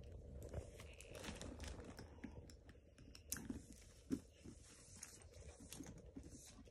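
Faint crinkling and rustling of clear plastic packaging with scattered small clicks as a shoulder strap is handled and clipped onto a handbag.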